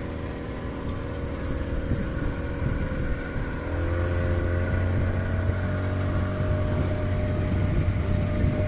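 Motorboat engine running steadily, then speeding up about three and a half seconds in, its hum rising in pitch and getting louder before holding at the higher speed.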